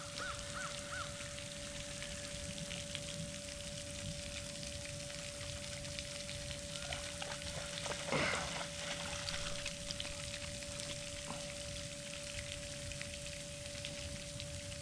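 Steady outdoor background hiss with a faint constant hum under it. A few quick faint chirps come at the start, and a brief louder sound comes about eight seconds in.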